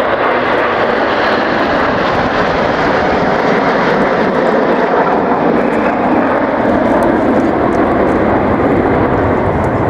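Jet noise from a formation of Red Arrows BAE Hawk jets and F-35 Lightning II fighters flying past together: a loud, steady rushing sound that carries on without a break.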